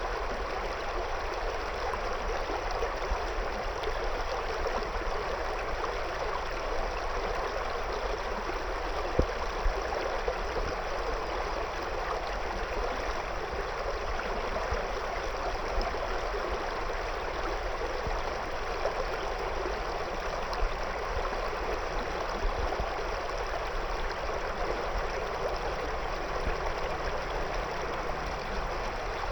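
A river running steadily over and around stones, a continuous rushing of water with small splashes and gurgles.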